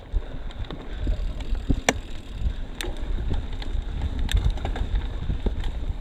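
Bicycle riding fast over a rough dirt trail: tyres rumbling steadily, scattered clicks and rattles from the bike, and wind on the microphone.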